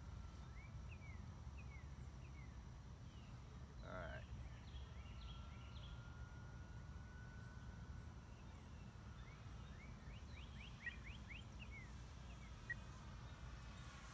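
Quiet open-air ambience: small birds chirping on and off, over a low wind rumble. A faint steady whine from the distant electric RC warbird's motor and propeller rises slightly in pitch in the middle.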